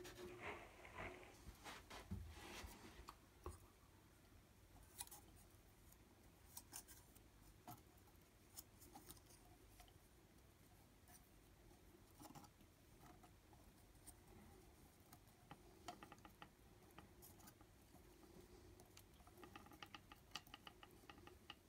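Near silence with faint, scattered scratches and clicks of hand work: a paintbrush dabbing PVA into a ceiling hole, then a sealant gun pressing filler onto a plastic hole liner, with a short run of quick ticks near the end.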